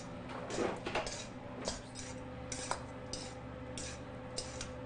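Metal forks scraping and clinking against a stainless steel mixing bowl as cooked pickerel is flaked apart, in short irregular strokes about two a second, over a steady low hum.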